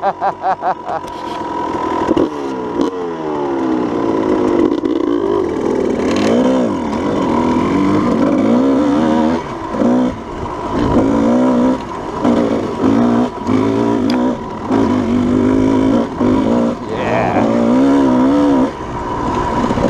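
Dirt bike engine revving up and down over and over as the throttle is worked, with several short drops where the throttle is shut off for a moment.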